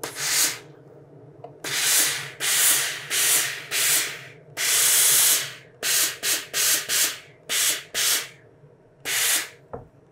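Steam iron pressing a canvas seam open, giving off about a dozen short hisses of steam with one longer hiss about halfway through.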